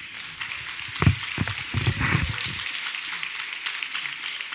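Audience applauding, with a few low microphone handling thumps about one and two seconds in.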